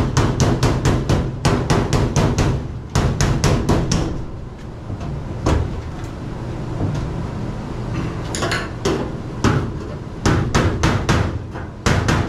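Runs of quick hammer taps on galvanized sheet-metal ductwork, about five a second, with a quieter pause in the middle and a few more bursts near the end.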